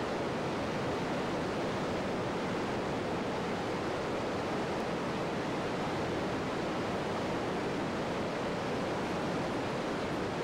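Steady rushing of a large waterfall, the Iguazu Falls, heard as an even, unbroken wash of water noise.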